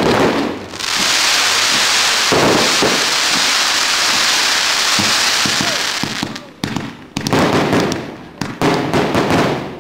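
Aerial fireworks going off: a dense, steady crackle for about five seconds, then a quick run of separate sharp bangs and pops.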